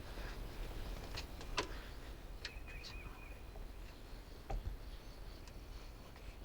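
Quiet outdoor ambience with a low steady rumble, a few sharp faint clicks and a short wavering high chirp from a small bird.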